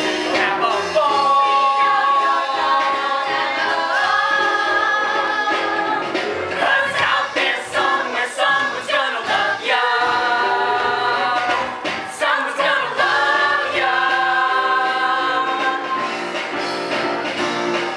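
Cast of a stage musical singing together, several voices on long held notes.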